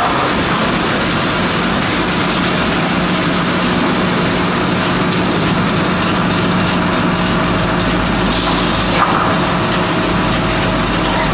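Industrial wood-processing machine running steadily: a continuous mechanical noise over a constant hum, with one sharp knock about nine seconds in.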